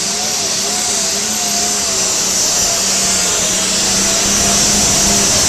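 Diesel pulling tractor's engine running flat out under load as it drags a weight-transfer sled: a loud, steady din with a strong high hiss, swelling slightly about four seconds in.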